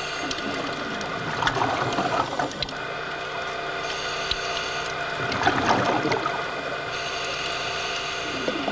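Scuba regulator exhaust bubbles heard underwater: exhaled air bubbles up in two bursts about four seconds apart, over a steady hum.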